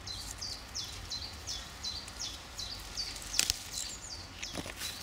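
A bird repeating a quick series of short, high chirps, each falling in pitch, close to three a second. About two thirds of the way through and again near the end come sharp snaps and rustles as red currant stems are plucked from the bush.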